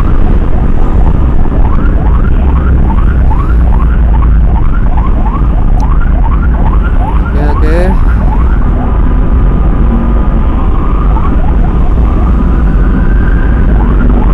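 Emergency siren in a fast yelp, quick rising sweeps about three a second, switching about halfway through to slower, longer tones with a long slow rise. A loud low rumble of vehicle engine and road noise runs under it.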